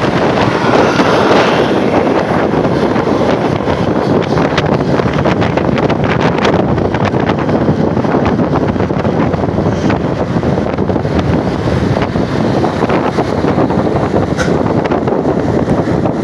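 Steady, loud rushing of wind buffeting the microphone, with no horn tones, and a few faint clicks over it.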